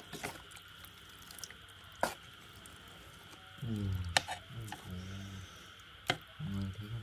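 Wet squishing and scattered clicks as chopsticks stir and lift marinated frog pieces in a metal pot. A low voice-like murmur comes in about halfway through and again near the end, louder than the stirring.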